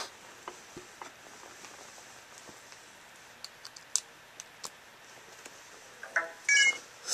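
Light scattered clicks and taps of handling while an iPod Touch is plugged into a laptop, then near the end a short beeping that signals the device has just been connected.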